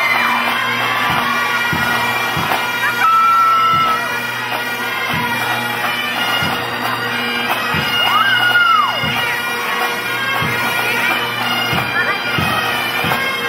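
Bagpipes playing: steady drones held under the chanter's melody, with a noisy crowd in the hall.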